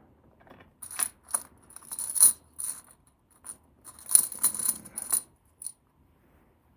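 Small hard objects, likely metal, clinking and rattling as they are handled, in two short bursts of rapid clicks with a bright ring.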